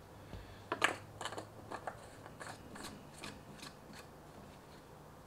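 Light clicks and scrapes of hands working at the oil filler cap on a car's plastic engine cover, a few short ticks a second.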